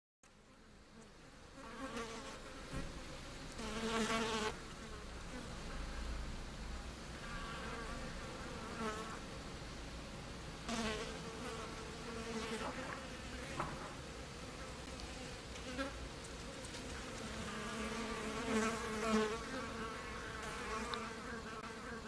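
Flying insects buzzing: a wavering drone that rises and falls in pitch and swells several times as they pass close, loudest about four seconds in.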